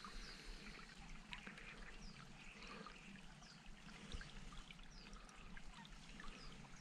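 Faint trickle of shallow running water, with short, high, falling chirps now and then.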